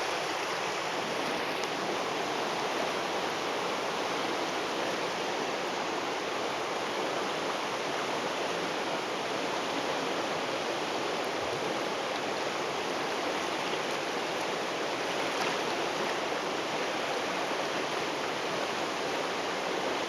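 River rapids rushing: a steady wash of white water.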